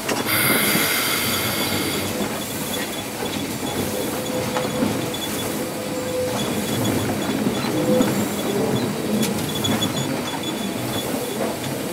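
Steam locomotive 643 moving slowly, heard from inside its cab: a steady rumble and rattle of the running gear and wheels on the rails, with a short hiss of steam in the first second. A thin squeal, typical of wheel flanges on the rails, holds for about two seconds near the middle.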